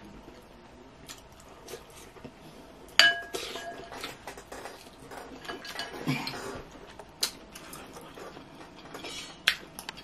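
Utensils clinking and scraping against a glass bowl: one sharp clink about three seconds in leaves the glass ringing briefly, and a few lighter clicks follow.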